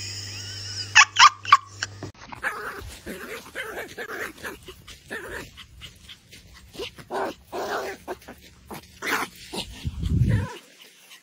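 Pomeranian on a leash giving an irregular string of short vocal calls. It opens with three sharp, loud sounds in quick succession about a second in, and a low rumble near the end.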